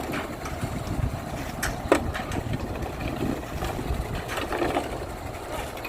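Diesel engine of heavy construction equipment running with a steady low rumble, with a sharp clack about two seconds in.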